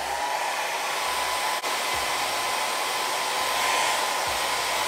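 Handheld hair dryer coming up to speed and then running steadily on its cool setting: a rush of air with a steady whine, briefly dipping about a second and a half in. It is drying the freeze spray used to hold down the lace of a lace front wig.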